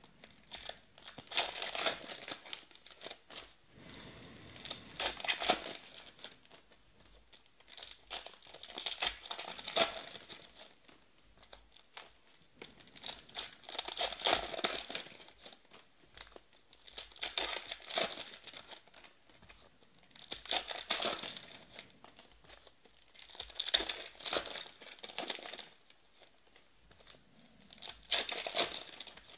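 Trading-card pack wrappers being torn open by hand and crinkled, one pack after another: about eight separate bursts of tearing and crackling, one every three to four seconds.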